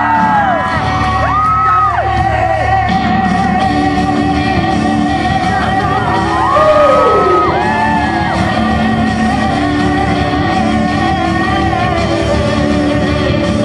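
A pop song performed live over a PA in a large hall, a singer holding long notes that rise and bend, over a steady accompaniment.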